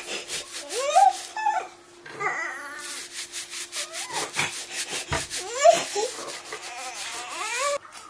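A hand rubbing quickly back and forth over a toddler's back and disposable nappy, several strokes a second. The 16-month-old, constipated for a couple of days, whimpers and cries in short rising wails over the rubbing.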